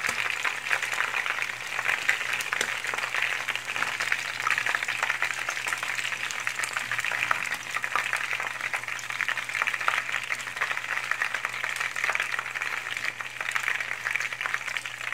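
Batter-coated shrimp deep-frying in a pan of hot oil: a steady, dense crackling sizzle.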